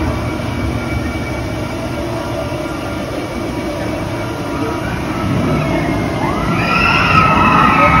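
Roller coaster train running past with a steady rumble that grows louder toward the end, and high wavering squeals starting about six seconds in.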